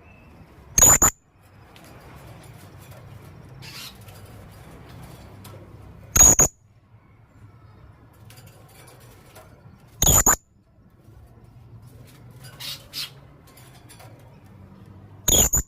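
Male blue-crowned hanging parrot (serindit) giving short, sharp, high-pitched calls. Four loud single calls come every four to five seconds, with a fainter pair of calls in between near the end.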